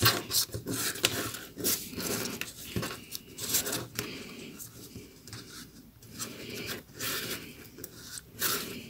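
Rolled newspaper tubes rubbing, scraping and crackling against each other in irregular bursts as the weave of a paper rose is pulled tight by hand.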